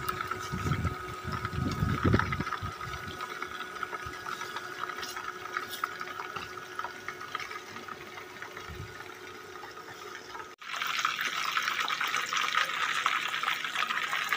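Whole chicken deep-frying in hot oil, sizzling steadily as oil is ladled over it, with a few dull knocks in the first two seconds. After a brief break about ten and a half seconds in, the sizzling comes back louder and brighter.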